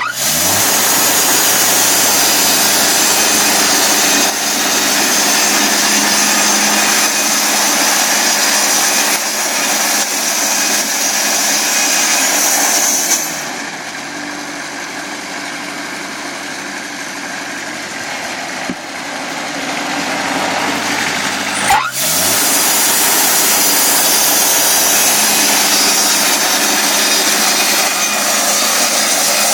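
Portable sawmill running loud under load with a high hiss of cutting. About halfway through, the engine note falls and the sound quietens as the mill slows. A few seconds before the end it abruptly comes back to full loud running.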